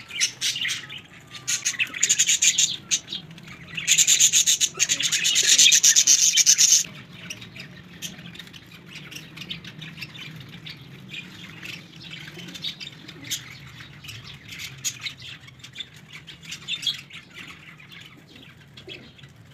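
Flock of domestic pigeons feeding on scattered grain: a dense, scratchy clatter of rapid pecking and shuffling with bird calls. It is loud in the first seven seconds, then cuts off abruptly and continues faint.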